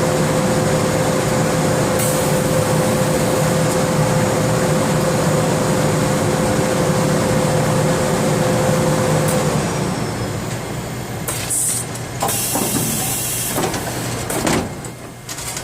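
Itsumi BT 500 making its problem noise: a steady mechanical hum with a thin whine held on one pitch. The whine stops about nine and a half seconds in, and the sound then turns uneven, with a few knocks or clicks.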